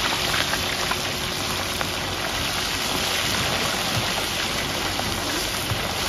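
Minced pork sizzling steadily in hot oil in a large wok, with fine crackling.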